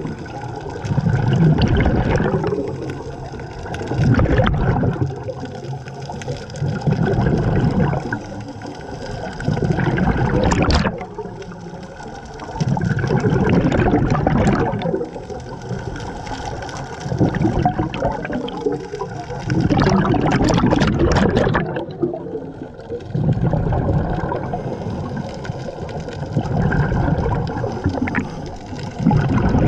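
Scuba diver breathing underwater through a regulator: bubbling surges of exhaled air about every three seconds.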